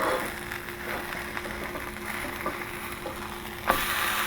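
Buttered grilled cheese sandwich sizzling quietly in a hot pan. A louder sizzle starts suddenly near the end, as the flipped sandwich lands on its unbrowned side.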